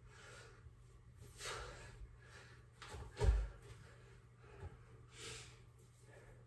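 A man breathing hard after a set of push-ups, with a few heavy exhales. About three seconds in there is one loud thump as he gets up off the wooden floor onto his feet.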